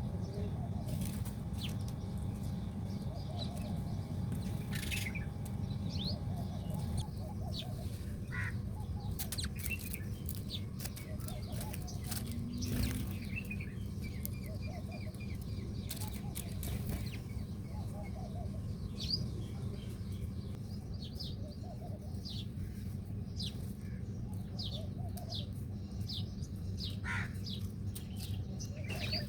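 Small birds chirping: many short, quick high calls, coming thicker in the last third, over a steady low background rumble, with a few brief rustles.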